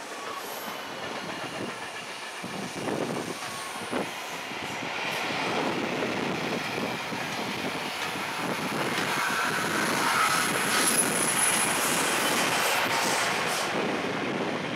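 Electric locomotive-hauled passenger train rolling through a set of points, its wheels clicking over the rail joints and crossings and getting louder as it comes close. A thin, high wheel squeal comes in around the middle.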